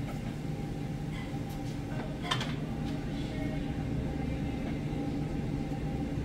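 Steady low hum of a gym's room tone, with one brief knock a little over two seconds in.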